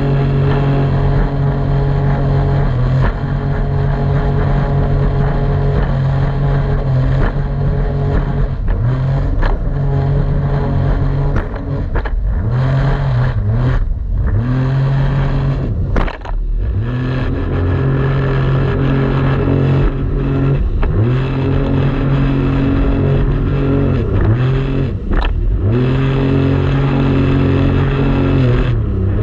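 Jet ski engine running at steady high throttle, its pitch dipping and climbing back several times in the second half as the throttle is eased off and reopened.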